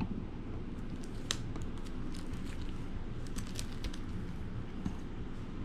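Comic books in plastic sleeves being handled and shifted on a table: scattered light crinkles and ticks from the plastic, over a steady low hum.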